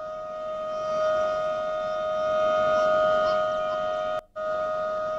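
A warning siren holding one steady pitch, with a brief cut-out about four seconds in.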